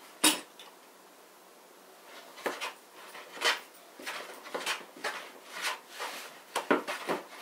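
A single knock, then after a short pause a run of short strokes of a Wood River hand plane shaving a board, its blade used straight out of the box and not yet tuned.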